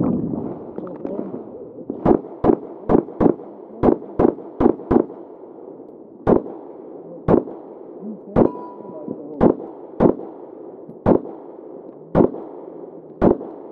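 Sixteen pistol shots from a stock Glock 19 Gen 4 MOS firing 9mm: a fast string of eight in about three seconds, fired in quick pairs, then eight slower aimed shots about a second apart. A short rush of noise comes at the very start, and one of the later shots is followed by a brief ringing tone.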